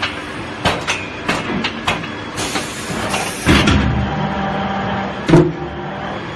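Veneer peeling line machinery running with a steady hum, broken by a series of sharp knocks, a short hiss of air about two and a half seconds in, and heavy thuds, the loudest near the end.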